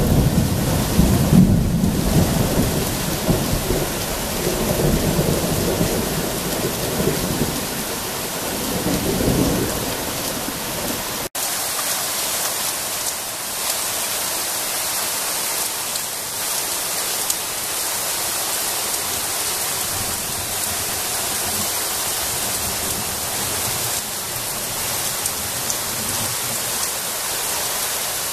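Thunder rumbling low and rolling over the steady hiss of rain for the first ten seconds or so; the rumble fades and the sound breaks off abruptly about eleven seconds in, leaving only an even hiss of falling rain.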